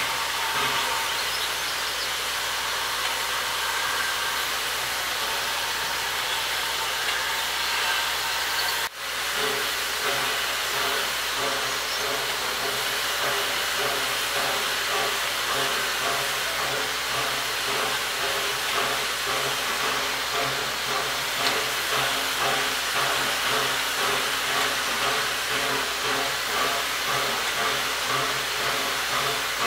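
Steam locomotive working a train of coaches away up the line: steam hissing with a regular beat of exhaust chuffs. A brief break comes about nine seconds in.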